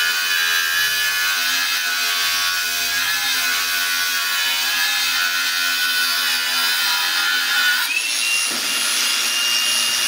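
Cordless brushless angle grinder cutting into the old steel ring that the seal runs on, on a truck flywheel, a steady grinding whine that wavers in pitch under load. About eight seconds in the disc comes off the metal and the grinder runs free with a steadier, higher whine.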